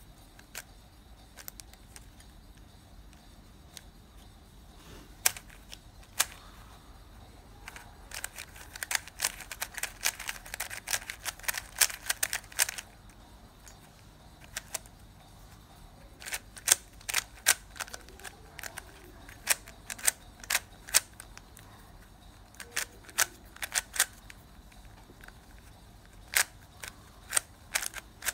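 QiYi Sail W 3x3 speed cube being turned by hand, its plastic layers clicking as they snap round. A dense run of rapid turns comes about a third of the way in, then scattered single and double clicks follow.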